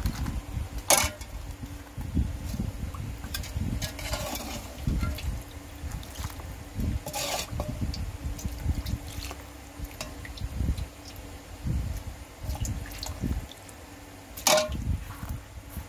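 A ladle stirring and scooping stew in a metal cooking pot, with liquid splashing and pouring from the ladle into a bowl. Three sharp clinks of the ladle against the pot come about a second in, midway and near the end.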